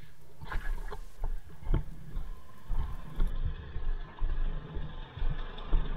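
A few sharp knocks and clatters, then, after a cut, footsteps crunching in snow with uneven low thuds over a steady low rumble.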